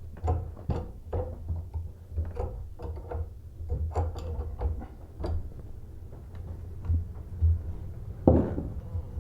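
Irregular small clicks and taps of a toilet supply line being handled as its plastic coupling nut is threaded on by hand.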